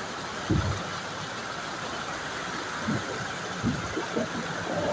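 Excavator's diesel engine running steadily at a distance, with a few low knocks.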